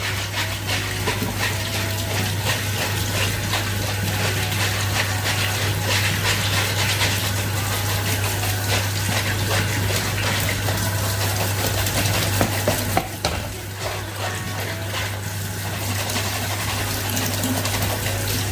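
Tap water running steadily while goji berries are rinsed clean, with a brief dip in the flow about two-thirds of the way through. A steady low hum runs underneath.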